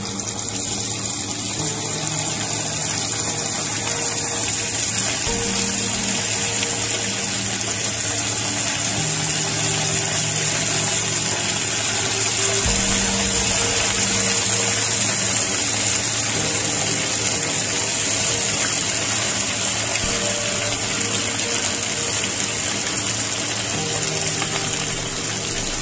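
Chicken pieces coated in a cornflour and maida marinade sizzling loudly in hot oil in a frying pan. The sizzle swells over the first several seconds as more pieces are dropped in, then holds steady.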